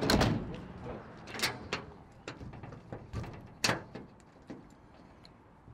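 A van's sliding side door slammed shut, then a scatter of short knocks and clicks that grow fainter.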